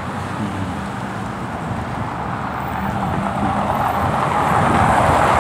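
Cars passing on a city street: a steady rush of tyre and engine noise that grows louder as a vehicle approaches, loudest near the end.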